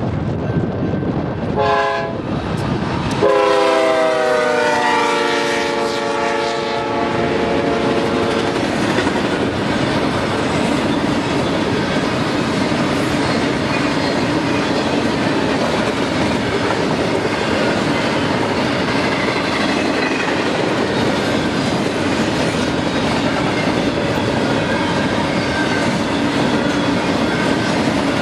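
Freight locomotive air horn: a short chord blast about two seconds in, then a long blast whose notes slide down in pitch as the locomotive goes by. It is followed by the steady rolling noise of the freight cars passing, with wheels clicking over the rails.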